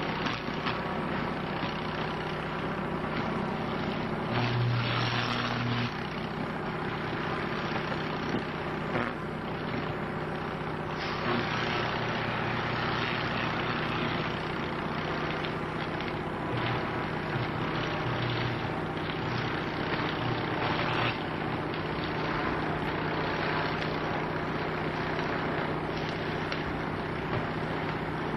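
High-voltage power line arcing through a crane that is touching it: a steady electrical buzz with crackle, surging louder around five seconds in and again for a long stretch from about eleven to twenty-one seconds in.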